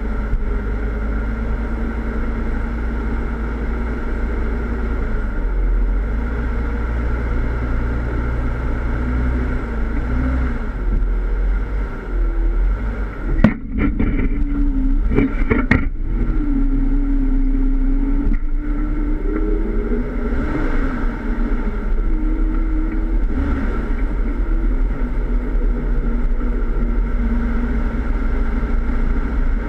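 Jeep Wrangler engine running off-road at low speed, heard from the front bumper, its pitch rising and falling with the throttle. A few sharp knocks and clanks come about halfway through.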